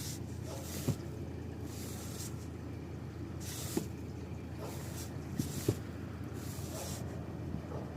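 A pet breathing noisily, a hissing, snorting breath coming about once a second, with a few faint clicks in between.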